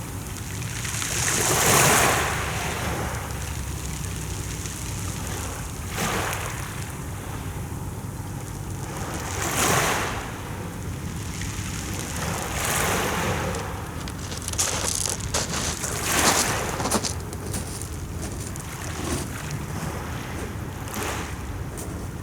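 Mediterranean sea waves surging and washing in every few seconds, with wind rumbling on the microphone.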